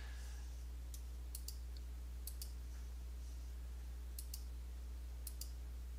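Faint computer mouse clicks, mostly in quick press-and-release pairs, about four or five times, as drop-down menu items are selected. A steady low electrical hum lies under them.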